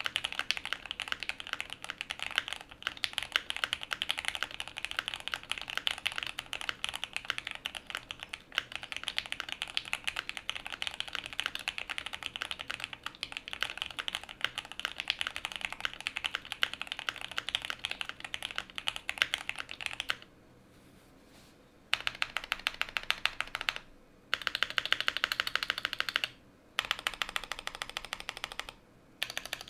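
Typing on a QK75 mechanical keyboard with a POM plate, full foam, hand-lubed Gateron Oil King linear switches and GMK keycaps: a dense, steady run of keystrokes for about twenty seconds, then a pause and three shorter bursts of typing with brief stops between them.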